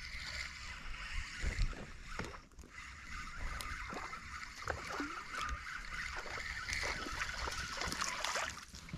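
Spinning reel being cranked steadily, a continuous whirring as a hooked goldeye is reeled in to the bank; it stops just before the end.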